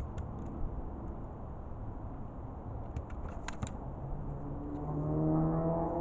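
Steady low background rumble with a few faint clicks, then a motor vehicle's engine hum that fades in from about four and a half seconds and grows louder near the end.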